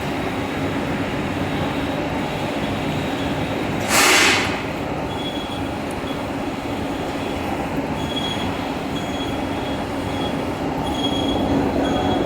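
Large vertical lathe running with a steady mechanical din and low hum, with faint short high squeals from about five seconds on. About four seconds in there is a short, loud hiss.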